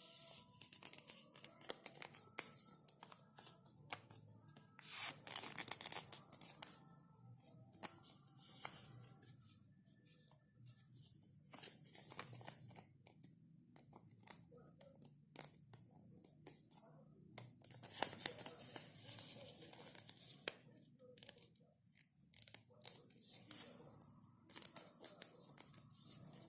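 Sheet of paper being handled and folded: irregular crisp rustles and creasing sounds.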